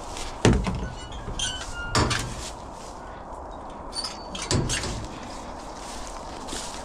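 Metal gate doors of a truck-bed dog box banging shut: three bangs, the first about half a second in and the loudest, with light metallic clinks of the latches between them.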